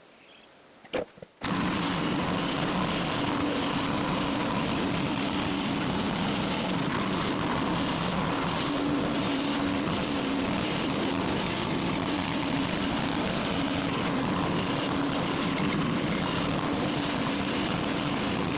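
Portable sawmill's small engine running steadily while sawing boards from a log. It cuts in abruptly about a second and a half in, after a moment of near quiet.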